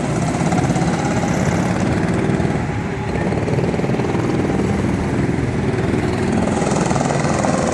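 Small single-cylinder go-kart engines running steadily as karts lap the track.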